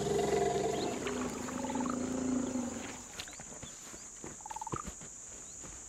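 African elephant giving a low, pitched rumble that slides down in pitch and fades out about three seconds in. It is a contact rumble, telling other elephants that there is water to drink here. Faint scattered knocks and a few short chirps follow.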